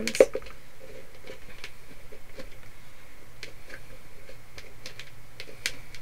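Hands pressing nautical rope around a pot on a craft table: faint scattered clicks and rustles, with one sharper click just after the start.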